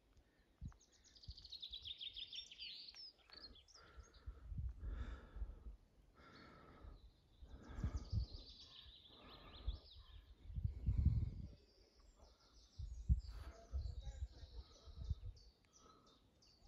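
A small songbird sings the same short phrase of rapid high notes several times over, with faint low rumbles and rustling between the phrases.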